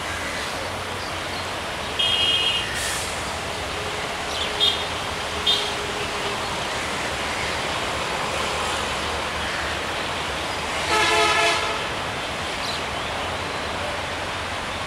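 Diesel locomotive approaching with a steady rumble of engine and train, sounding its air horn in one short blast about eleven seconds in.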